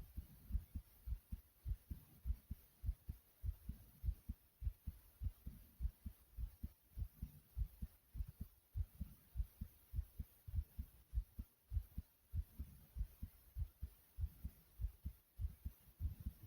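A person's heartbeat beating quickly, heard close up: an even, unbroken run of low, dull thumps.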